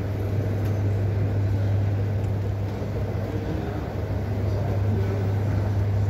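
Steady low hum and rumble of a moving escalator.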